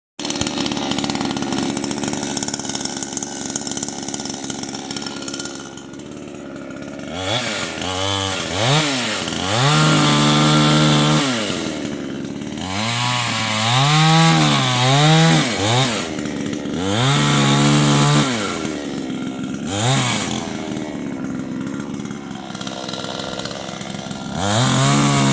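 Chainsaw cutting firewood: a steady engine sound for the first several seconds, then revving up and down over and over.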